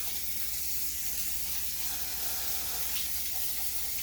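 Kitchen tap running in a steady stream as fresh loquat leaves are rinsed under it in the sink.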